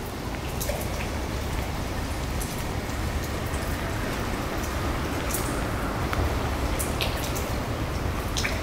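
Rain falling on canal water, with scattered sharp drips over a steady low rumble.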